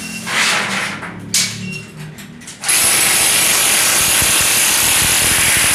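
Electric demolition hammer with a chisel bit chipping the render off a concrete wall: a few short stop-start bursts, then running continuously from a little under three seconds in.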